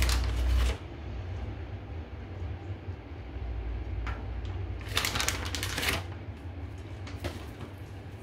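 Sesame seeds rattling in a small shaker as they are shaken over a plate, in two short bursts: one lasting under a second at the start and another about five seconds in. A steady low hum runs underneath.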